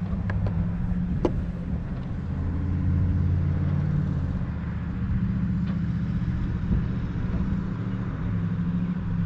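An engine running steadily, a low drone that gets a little louder about three seconds in. A couple of light clicks come in the first second and a half.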